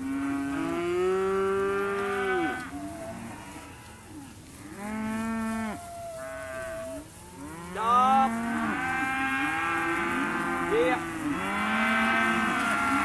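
Weaned calves bawling: a string of long moos, several voices overlapping, with calls coming thickest in the last few seconds.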